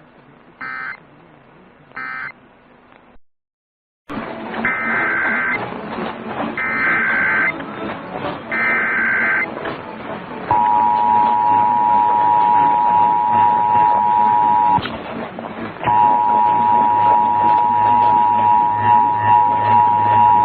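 Emergency Alert System broadcast signalling. It opens with two short end-of-message data bursts. After a second of silence come three longer SAME header data bursts, each a raspy digital screech under a hiss. Then the EAS two-tone attention signal sounds as a steady harsh dual tone; it cuts out for about a second partway through and then resumes.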